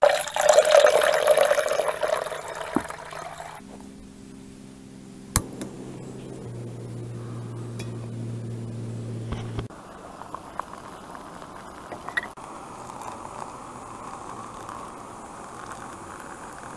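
Water poured from a plastic jug into a stainless steel camping pot, splashing loudly for a few seconds. Later, water is poured from the pot into an insulated travel mug: a steady filling sound whose pitch rises slightly as the mug fills. A sharp click falls in between.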